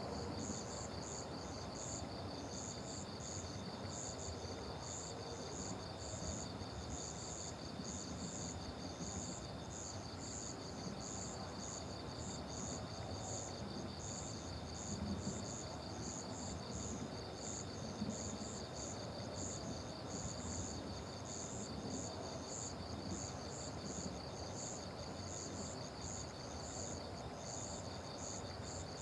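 Night insects chirping steadily. One sings a fast, even trill and another a higher chirp repeating about twice a second, over a low background hiss.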